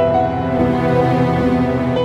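Instrumental background music with long held notes.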